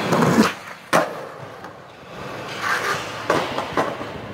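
Skateboard wheels rolling on concrete, with one sharp clack of the board about a second in, then more rolling with a few lighter knocks near the end.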